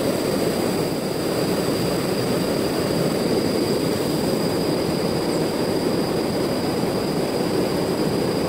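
River water rushing steadily past boulders and over small rapids. The river is running high and fast after heavy rain.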